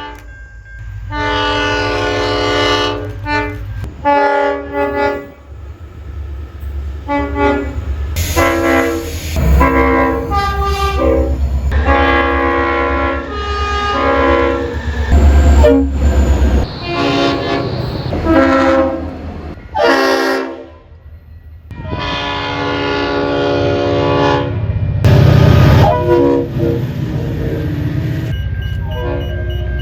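Multi-tone train horns sounding in a run of short and long blasts, over the low rumble of moving trains. The chord changes from blast to blast as one horn recording cuts abruptly to the next, with a longer held blast about two-thirds of the way through.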